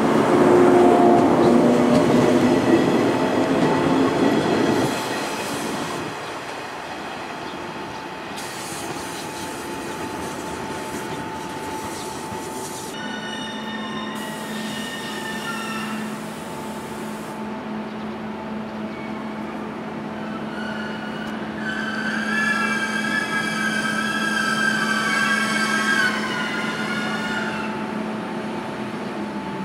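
A yellow 115-series electric train moves along the platform, loud for the first five seconds or so with its MT54 traction motors running. Then an HD300 hybrid shunting locomotive hauls container wagons slowly past, with a steady hum and high wheel squeal that rises for several seconds near the end.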